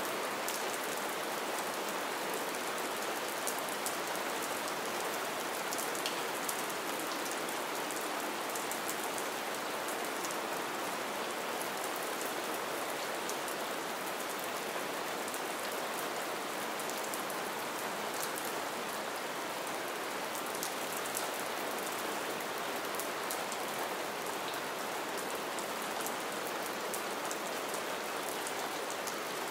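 Light, gentle rain falling steadily: an even hiss of rain with scattered small drop ticks.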